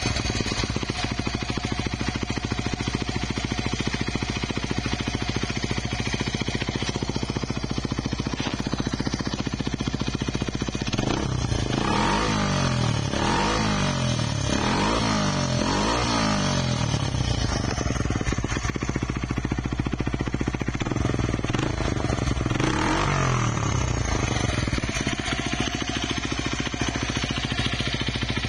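Honda Ape 50's single-cylinder four-stroke engine through a Yoshimura titanium Cyclone exhaust, idling steadily. In the middle it is revved in a run of several quick throttle blips, and it is blipped once more later.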